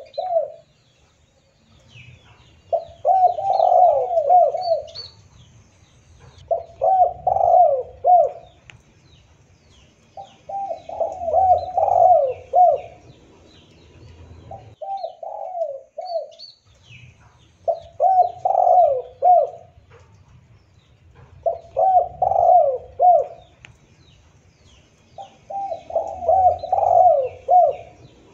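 Spotted doves cooing: a repeated phrase of several rolling coo notes about every three to four seconds, seven times, with faint chirps of small birds behind.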